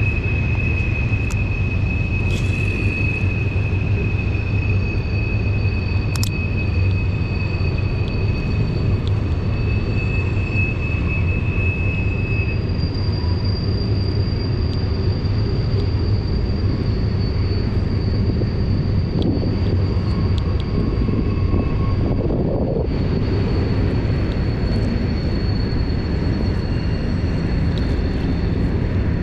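Fast snowmelt river rushing past at high flow, a loud steady low rush of water with faint thin high tones held above it.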